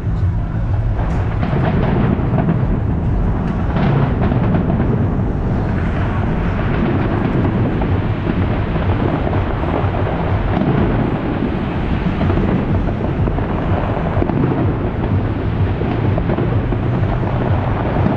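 Fireworks display: a dense barrage of shells bursting, the booms running together into one continuous rumble.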